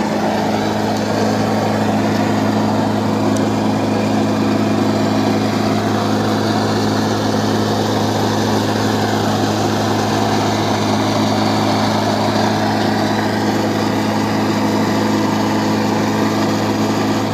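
A small engine running steadily at a constant speed, with a rushing noise over it.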